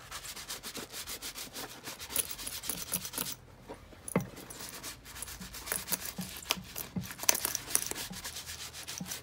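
Bristle brush scrubbing saddle-soap lather into a leather motorcycle boot in quick, rhythmic strokes, with a short pause a few seconds in.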